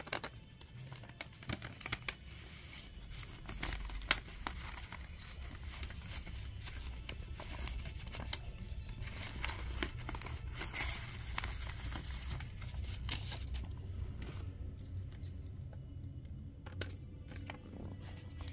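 Paper crinkling and tearing in many short crackles as a taped, homemade paper blind bag is opened by hand.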